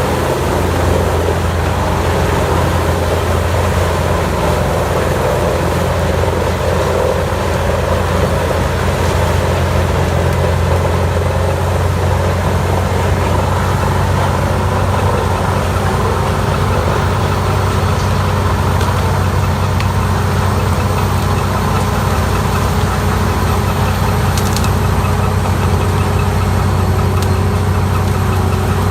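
Engine of a massive CBI 6800CT land-clearing wood chipper, running loud and steady at a constant pitch.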